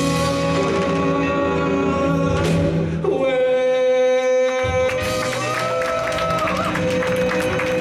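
Live jazz combo: a male vocalist holds long sustained notes over drums with cymbal strikes and an acoustic guitar, a big held ending to a song.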